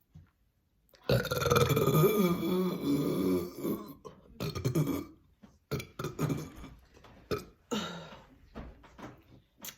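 A woman's deliberate on-command burp, long and loud, starting about a second in and lasting nearly three seconds, followed by several shorter, quieter sounds.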